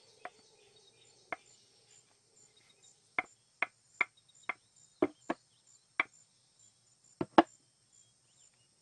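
About a dozen sharp, short knocks at uneven intervals, most of them bunched in the middle of the stretch, over faint steady cricket chirping.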